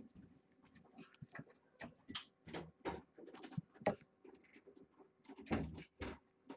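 Irregular light taps, scratches and rustles of kittens playing among toys on a blanketed floor, with louder rustling a little before the end as a cat brushes close past.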